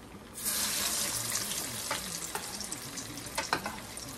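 Hot oil in a skillet bursting into a loud sizzle about half a second in as a fresh salmon croquette is laid in, then sizzling on more evenly with scattered crackles.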